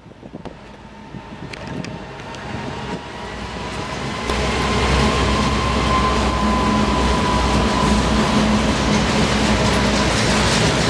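2TE116U two-section diesel-electric locomotive's 16-cylinder diesel engines running as it hauls a freight train of tank wagons past. The rumble builds and turns loud about four seconds in, with a steady whine over it.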